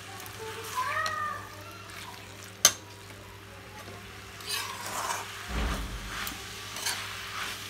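Slotted metal spatula stirring and scraping jackfruit pieces through masala in a steel kadhai, over a faint sizzle of frying. One sharp metal clack about two and a half seconds in is the loudest sound.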